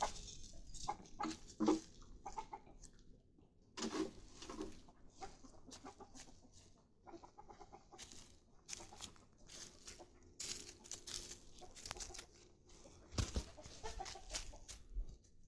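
Domestic chickens clucking on and off in short calls, mixed with brief rustles and knocks.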